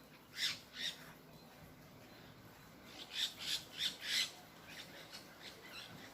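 A bird giving harsh squawking calls: two about half a second in, then a quick run of five, followed by fainter calls.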